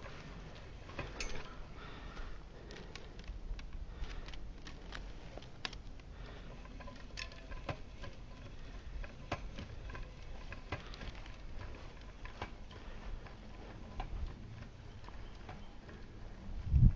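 Scattered light clicks, taps and rustles of cable and gear being handled, with a louder low thump near the end.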